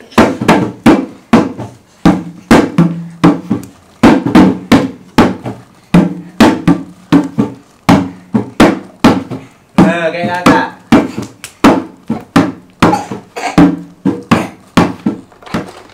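Music with a steady, fast drum beat of about three hits a second, with a singing voice over it.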